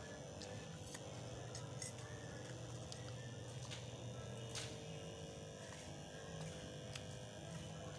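Faint steady background hum with a few light clicks.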